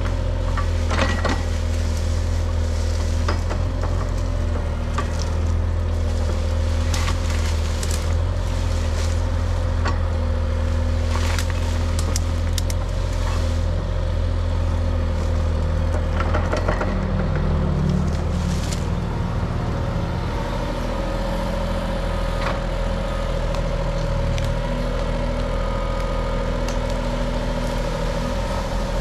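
Cat 303.5 mini excavator's diesel engine running steadily, with brush cracking and snapping as the root rake grabs and loads it. The engine note shifts about two-thirds of the way through.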